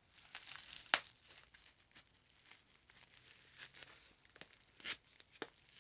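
Packaging being unwrapped by hand: faint rustling and crinkling with a few sharp clicks, the loudest about a second in.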